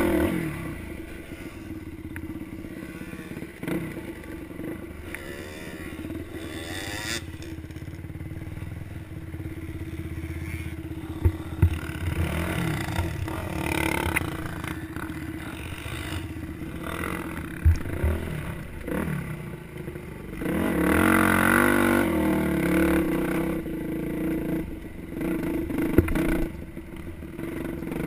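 Dirt bike engine running under way, its pitch rising and falling again and again as the throttle is worked, with a few sharp knocks from the bike along the way.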